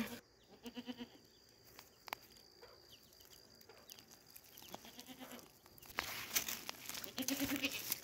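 Bleating livestock: short quavering calls about a second in, a faint one near five seconds and another near the end. Scattered clicks and a crackly rustle fill the last two seconds.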